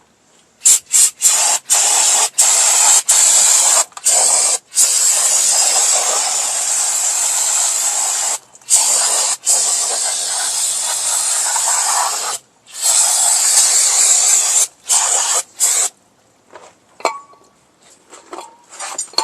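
Aerosol brake cleaner spraying onto a drum brake assembly: a few short bursts of hiss, then long sustained blasts with brief pauses, stopping a few seconds before the end.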